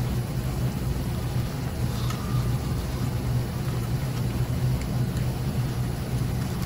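Steady low hum of a running machine in the background, with faint handling noises as wires are pushed into a channel in a metal microscope base.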